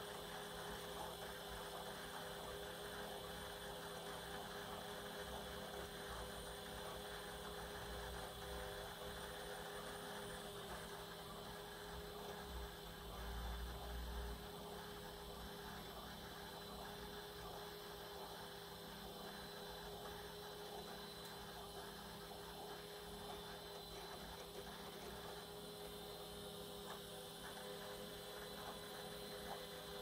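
HPE ProLiant DL380 Gen9 server's cooling fans running steadily and faintly after boot, an even whir with a few steady tones. A brief low rumble about thirteen seconds in.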